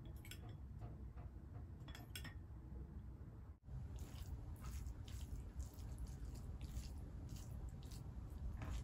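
A spoon clinks faintly against a ceramic bowl a couple of times as gravy is ladled onto rice. About a third of the way in, fingers start mixing rice and gravy on the plate with soft, wet squishing and light ticks.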